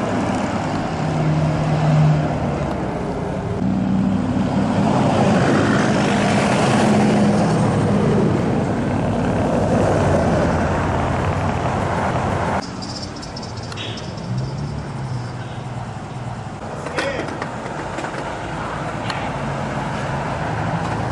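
Pickup trucks cruising past on a street, engines running and revving with tyre and traffic noise, and people's voices mixed in. The sound changes abruptly and gets quieter about twelve and a half seconds in.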